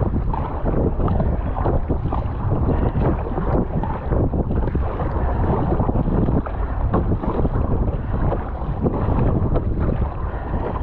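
Wind buffeting the microphone, with irregular splashing of choppy water against an Epic V7 plastic surfski's hull and paddle blades as it is paddled hard into the wind.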